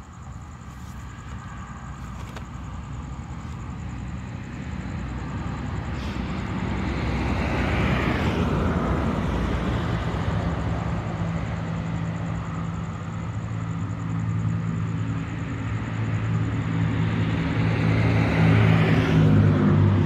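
A motor vehicle passing nearby. Road noise swells to a peak about eight seconds in, then a low engine hum builds and is loudest near the end.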